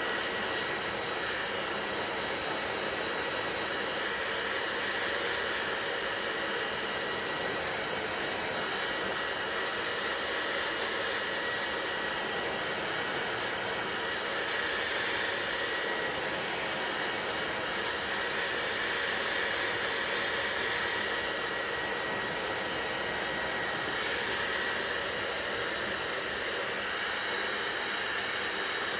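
Hair dryer running steadily: an even rush of blown air with a thin high whine from its motor.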